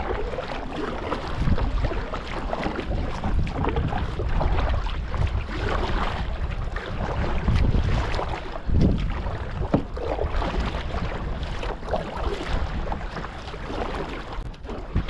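Kayak on choppy sea water: irregular splashing and slapping of water around the hull, with gusts of wind buffeting the microphone.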